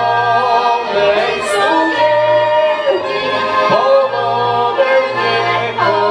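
Polish folk band playing a tune: bagpipe and clarinet carry the melody over accordion chords and double bass notes.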